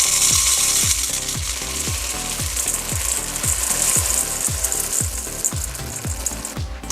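Background music with a steady thumping beat, under a steady sizzling hiss from kitchen work while Rice Krispie cakes are being made. The hiss cuts off suddenly near the end.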